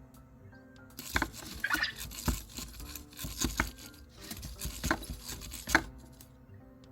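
An EMO desk robot's small plastic body clattering and knocking on a hard surface: a run of clicks, taps and scrapes with a few sharp knocks, starting about a second in and stopping near the end.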